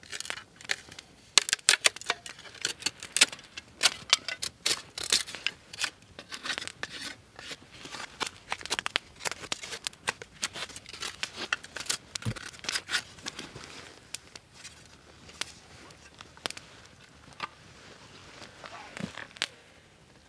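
Knife carving a wooden spatula: quick, irregular scraping and shaving strokes of the blade on wood, coming thick in the first half and thinning out toward the end.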